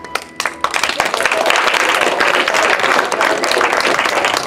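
Audience applauding: a few scattered claps in the first second, then steady applause from a room full of people.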